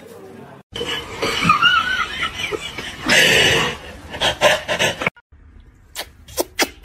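A person laughing, then several short, sharp sounds near the end.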